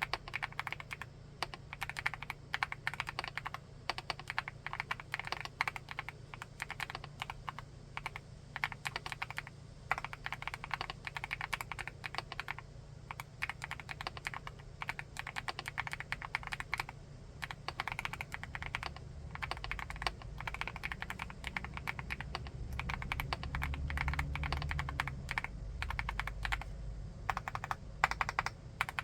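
Typing on a 75%-layout full-aluminium keyboard: fast, continuous keystrokes with short pauses between runs. A low rumble sits under the typing in the latter part.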